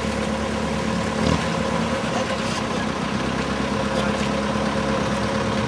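An engine running steadily at idle, a constant hum with no change in speed.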